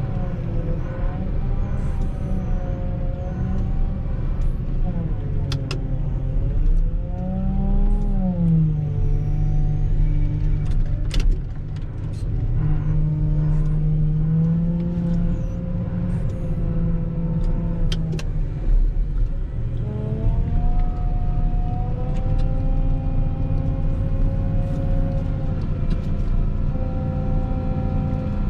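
Volvo L60H wheel loader's diesel engine working while plowing snow, its pitch rising and falling as it revs up and down under load, with a few sharp knocks and rattles.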